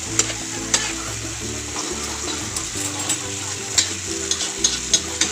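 Tomato sauce with sautéed onion and garlic sizzling in a metal wok as a spoon stirs it, with scattered sharp clicks and scrapes of the spoon against the pan. Background music with held low notes plays underneath.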